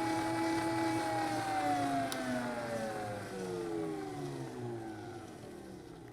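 Electric meat grinder motor spinning down after being switched off: its whine holds steady for about a second, then falls steadily in pitch and fades over the next several seconds.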